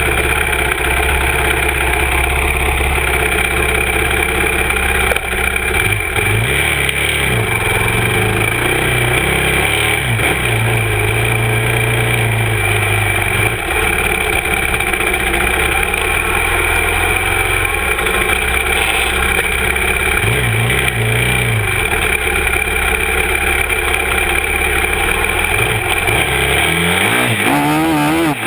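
Yamaha YFZ 450R quad's single-cylinder four-stroke engine running hard as it is ridden, heard close up from the rear grab bar. The revs rise and fall repeatedly, with several quick rising revs near the end.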